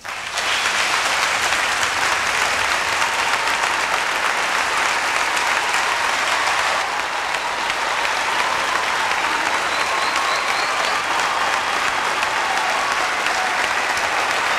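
Large audience giving a standing ovation: dense, sustained applause that breaks out suddenly right at the start and holds steady throughout.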